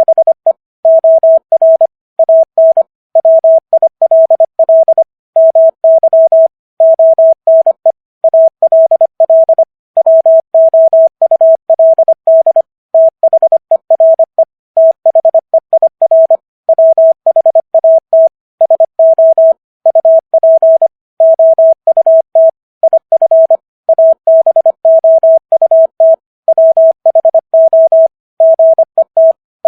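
Morse code practice tone sending common English words at 25 words per minute: a single pure beep keyed on and off in quick dots and dashes, with short gaps between letters and longer gaps between words.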